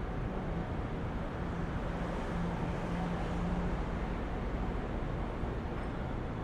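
City street traffic: a steady, dense rumble and hiss of vehicles. A low steady hum runs through it for the first three to four seconds and is loudest just before it fades.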